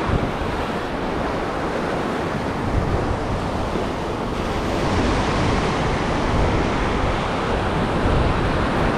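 Ocean surf breaking and washing up the beach in a steady wash of noise, with wind rumbling on the microphone.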